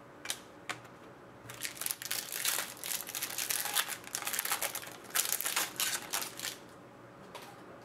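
Plastic wrapper crinkling and crackling in the hands for several seconds, after a couple of sharp clicks in the first second.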